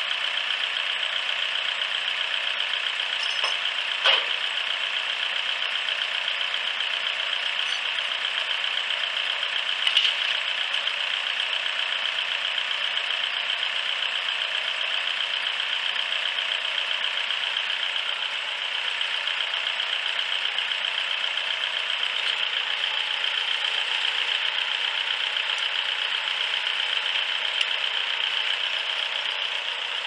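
Small engine idling steadily, with two short sharp knocks about four and ten seconds in.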